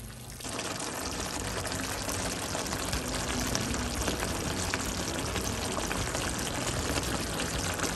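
Chicken sizzling in oil in a pan: a dense, steady crackle that starts abruptly about half a second in.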